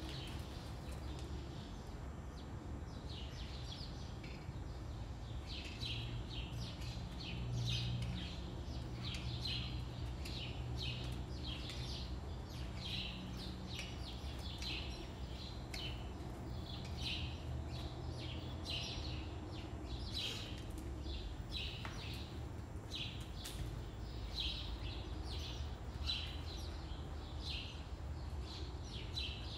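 Small birds chirping over and over in quick, short, high notes, over a steady low hum.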